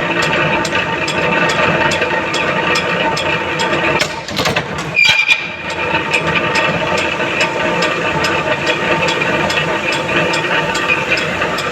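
A machine tool running steadily, with a regular ticking on top. The sound drops briefly about four seconds in, then picks up again.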